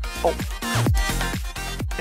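Background electronic dance music with a steady kick-drum beat, a little over two beats a second. A brief vocal exclamation comes just at the start.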